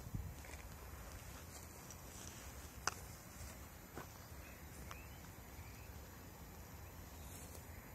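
Faint outdoor ambience: a steady low rumble, a sharp click about three seconds in with two fainter clicks after it, and a few faint short chirps.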